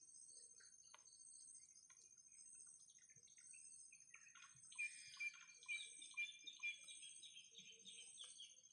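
Crickets or similar insects trilling steadily and faintly, with a bird giving a rapid series of high chirping calls starting about halfway through.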